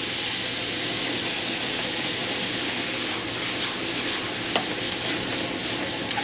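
A skillet of chicken, sausage, peppers and potatoes sizzling hard over a high gas flame, just splashed with white wine, as the pan is tossed and stirred with tongs. A steady hiss, with a few faint clicks.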